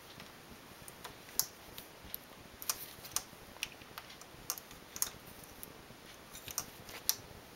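Light, irregular metallic clicks, about a dozen or more, as a small metal-tipped hand tool works stitches off the metal needles of a knitting machine's needle bed.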